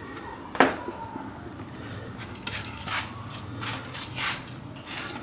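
A handful of small sharp clicks and taps, the loudest about half a second in, from a wire and a tiny circuit board being handled, over a faint low steady hum.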